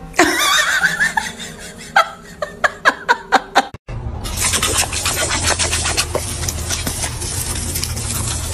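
A person laughing in short bursts, then from about four seconds in a garden hose spray nozzle hissing steadily as its water jet is aimed at a dog.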